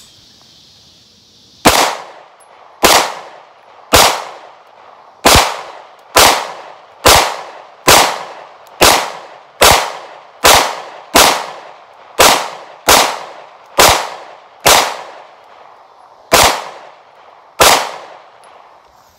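Semi-automatic pistol fired seventeen times, a full magazine, at about one shot a second with a slightly longer pause before the last two shots. Each shot is followed by a short echoing tail.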